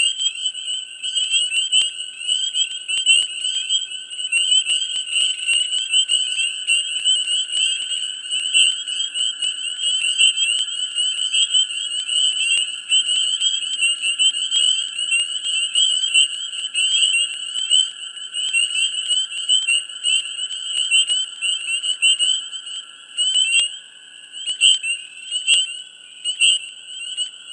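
Dense chorus of many frogs calling at once in a swamp in mid spring: a thick layer of fast, high trilling calls over a lower steady drone of more calls. The chorus thins a little near the end.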